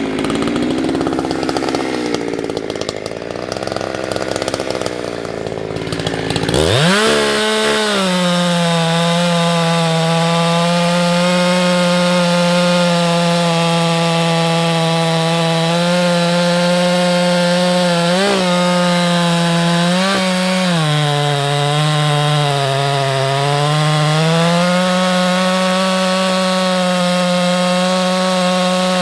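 Husqvarna 365 chainsaw with a 24-inch bar running at high revs, cutting firewood. The engine note is uneven for the first few seconds, then jumps up and holds steady in the cut. Its pitch sags for a couple of seconds past the middle as the saw loads up, then recovers.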